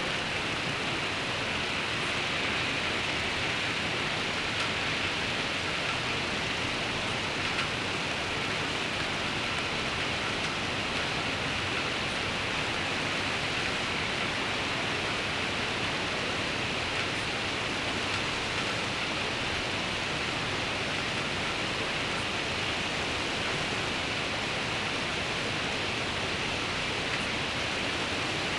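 Steady rain falling: an even, unbroken hiss with no single drops or passing sounds standing out.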